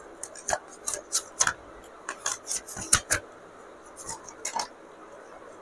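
Light clattering and rustling of small objects being handled: about a dozen short, sharp clicks and scrapes in quick, uneven succession, stopping a little before the end.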